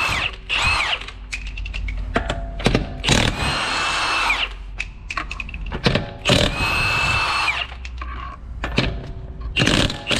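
Milwaukee M18 cordless impact wrench with a 21 mm socket spinning lug nuts off a car wheel, in several bursts of about a second each, its motor whining over the hammering rattle. Short clicks and knocks come between the bursts.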